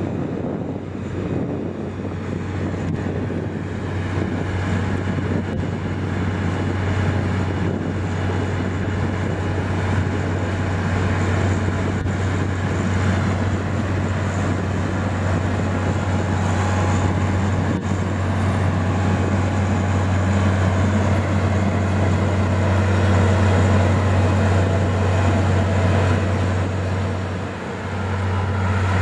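Diesel engine of a Ploeger MKC-4TR self-propelled spinach harvester running steadily under load while it cuts, a deep drone that slowly grows louder. It dips briefly near the end and comes back louder.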